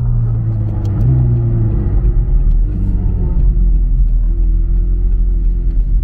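McLaren 600LT Spyder's twin-turbo V8 running steadily at low revs, a continuous low rumble as the car rolls slowly, heard from inside the open cockpit.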